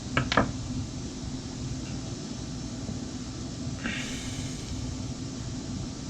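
Two sharp clicks, then about four seconds in a brief rattle, as small metal parts and a tool are handled while a chainsaw carburetor is taken apart; a steady low hum underneath.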